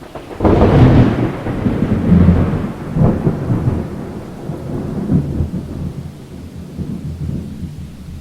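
Deep boom sound effect, thunder-like: a heavy blast about half a second in, then rolling rumbles that swell again near two and three seconds and slowly die away.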